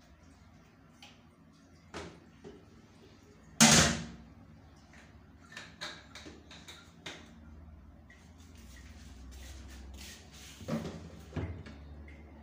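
A plastic toilet lid being lowered and shutting onto the bowl with one sharp clack about four seconds in, followed by a few lighter clicks and knocks, with two more knocks near the end.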